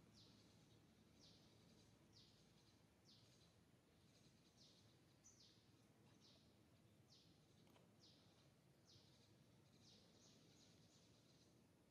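Near silence: faint outdoor ambience with a short, high, downward-sweeping chirp repeated about once a second.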